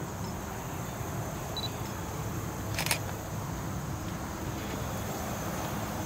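Handling noise from a handheld camera over a low steady outdoor background, with one sharp click about three seconds in and two brief high chirps in the first two seconds.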